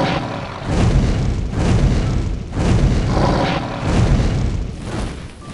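Booming fire-blast sound effects: a series of heavy blasts with a deep rumble, about one a second.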